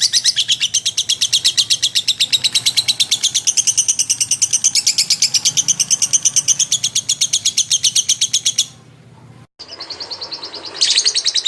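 Lovebird giving a long, fast chattering trill of high chirps, about eight or nine a second. It breaks off about nine seconds in and starts again after a short gap near the end.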